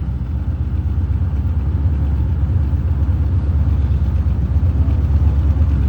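1978 Chevrolet Corvette's L-82 350 V8 idling steadily while it warms up, its exhaust note sitting low and even; it sounds mean.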